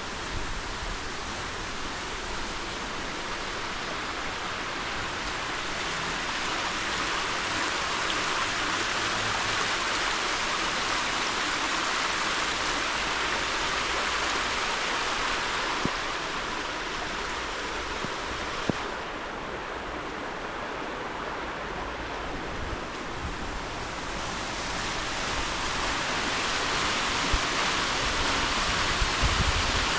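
Steady rush of flowing water, quieter for a few seconds past the middle and louder again near the end, with a few small clicks.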